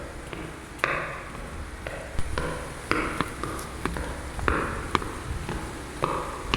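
Irregular sharp taps or knocks, roughly one to two a second, each with a brief ringing tail, over a low steady rumble.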